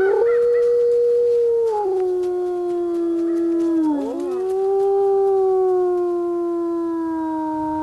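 Gray wolf howling: long, steady howls, the first stepping down in pitch about two seconds in, then after a brief break about four seconds in a second howl that slowly sinks in pitch.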